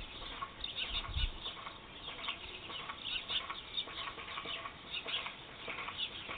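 Many small birds chirping busily, with short overlapping chirps. A low rumble sounds under them during the first second or so.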